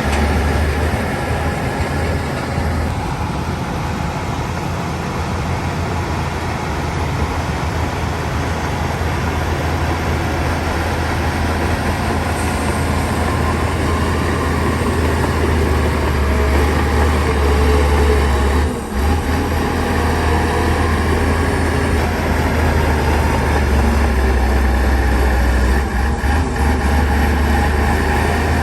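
Heavy diesel earthmoving machinery running steadily with a strong low rumble, dipping briefly about two-thirds of the way through.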